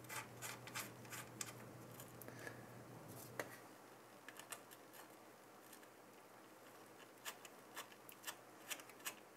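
Faint, irregular small clicks and scratches of threaded mounting spacers being handled and turned by hand onto the cooler's backplate bolts at the motherboard. A low steady hum stops about three and a half seconds in.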